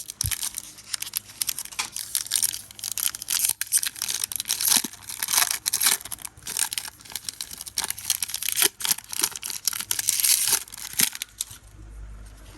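A Pokémon booster pack's foil wrapper being torn open and crinkled by hand: a dense, rapid crackling that stops about a second before the end.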